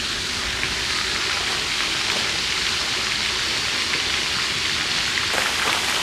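Steady rain falling, an even hiss with a few scattered drop ticks.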